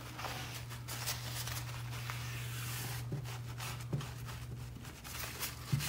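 Faint rubbing and rustling of a paper towel wiping sealant into a crack along the ceiling's crown molding, with a few small clicks, over a steady low hum.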